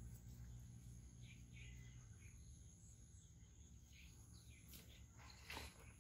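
Near silence: faint rural ambience with short scattered bird chirps over a steady high insect hum, and a brief rustle near the end.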